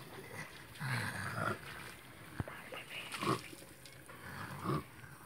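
A boy's loud snoring snorts, four or five short throaty ones about a second and a half apart, with a single click midway.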